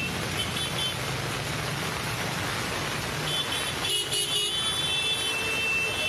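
Road traffic in the rain on a wet street: vehicle engines running under a steady hiss of rain and water, with high-pitched horn toots near the start and again from about three seconds in.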